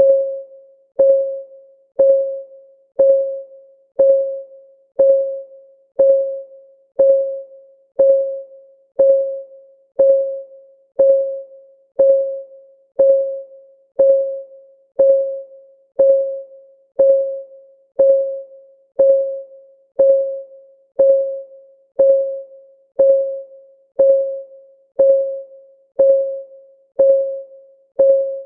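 Countdown timer's clock-tick sound effect: one short, pitched tick every second in a steady rhythm, each a quick click with a ringing tone that dies away within about half a second.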